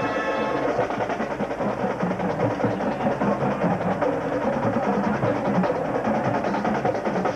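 Marching band: a held brass chord ends about half a second in and gives way to fast, busy drumming from the percussion section.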